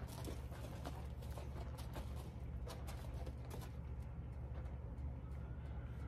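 A horse and a person walking on sandy dirt: a run of short, soft steps that thin out and stop about four seconds in as the horse is halted. A steady low rumble sits underneath.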